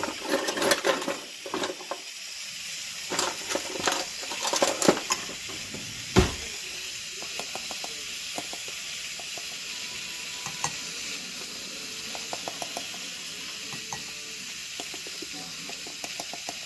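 Steady hiss of steam venting from an electric pressure cooker's quick-release valve. Over it come clinks and scrapes of cornstarch being spooned from its container into a ceramic mug in the first five seconds, and a single sharp knock about six seconds in.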